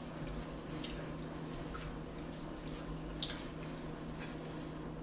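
Faint eating sounds at a table: soft mouth and chewing noises and a few light clicks of a fork, one a little louder about three seconds in, over a steady low hum.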